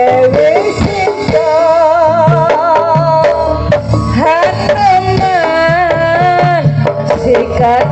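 Live jaranan music from a Javanese gamelan-style ensemble: hand-drum (kendang) patterns under a wavering, high melody line.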